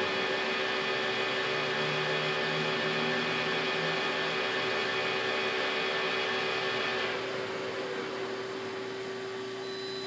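Acra CNC lathe running an automatic program, its spindle drive whining steadily. About seven seconds in the spindle stops and the whine falls away in pitch as the program ends, leaving a steady hum.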